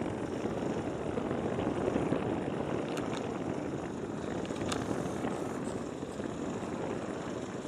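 Jet noise from the four Pratt & Whitney PW4056 turbofans of a Boeing 747-400 as it rolls along the runway: a steady rumble.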